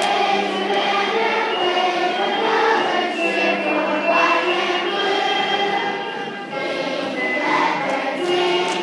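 A group of children singing together in unison, holding long sustained notes.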